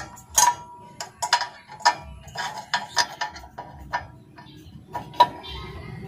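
Irregular metallic clicks and clinks, a few a second, from hands working loose the fittings of a truck's 24V air horn relay.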